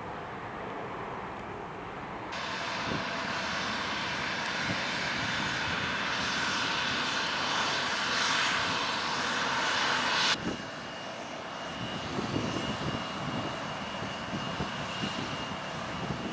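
Jet airliner engines: a Boeing 737 climbing away, then a Delta Connection Embraer E175's GE CF34 turbofans on the runway. A loud rushing noise starts suddenly about two seconds in and cuts off abruptly about ten seconds in. After that comes a steady high whine over a low rumble.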